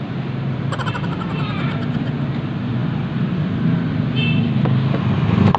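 Steady low engine hum, with a quick rattle of sharp plastic clicks about a second in and single clicks near the end as a stiff plastic body panel on a Honda Click 150i scooter is pried at.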